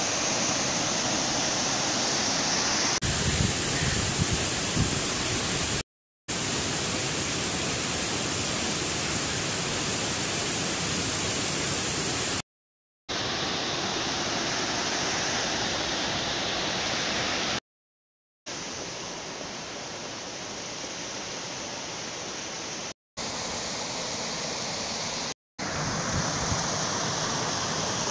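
Small mountain stream cascading over rocks in little waterfalls, a steady rush of water, cut off to silence for a moment about five times.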